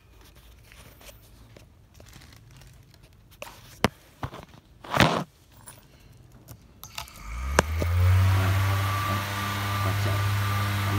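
A few light clicks and a brief rustle of handling. About seven seconds in, a homemade fan driven by a 12 V brushless motor spins up quickly and runs with a loud, steady low hum and a rush of air.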